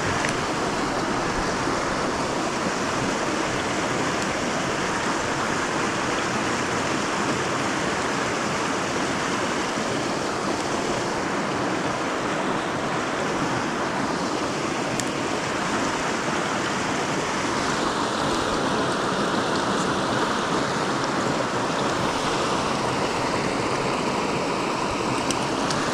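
Steady rush of a fast-flowing mountain stream, an even water noise with no breaks.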